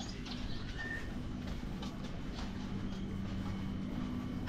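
Alley ambience: a steady low mechanical hum with scattered small clicks and knocks, and a brief high chirp about a second in.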